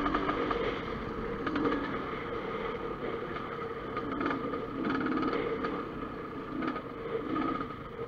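Dirt bike engine running while riding over a rocky trail, its note easing off a little under a second in and wavering with the throttle after that.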